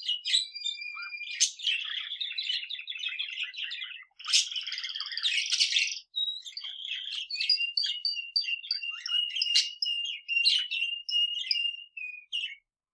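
Pet budgerigar and male canary singing together: dense chattering warble in the first half, then a long run of rapid repeated high notes from about six seconds in that stops abruptly near the end.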